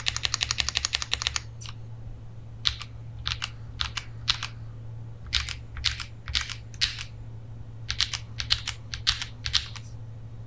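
Typing on a CIY GAS67 gasket-mount mechanical keyboard with KTT Tofu switches: a fast run of keystrokes for about the first second and a half, then slower keystrokes in short clusters.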